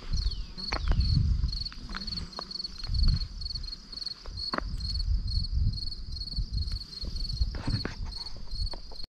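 A cricket chirping steadily in a high, even pulse about three times a second, over crunching footsteps on a gravel track. The sound cuts off abruptly just before the end.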